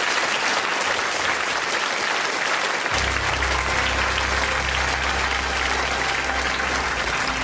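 Lecture-theatre audience applauding steadily. About three seconds in, low sustained notes of music come in beneath the clapping.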